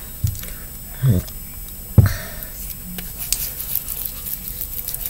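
Three short low sounds falling in pitch in the first two seconds, then crackly rustling as hands rub together and work through hair.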